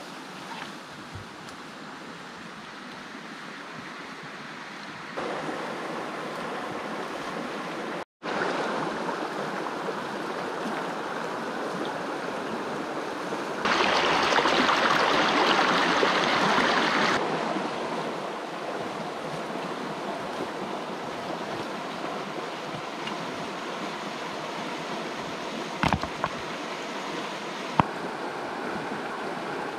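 Flowing stream water rushing steadily. The level changes abruptly at several edits, and the water is loudest for a few seconds in the middle. A couple of small knocks come near the end.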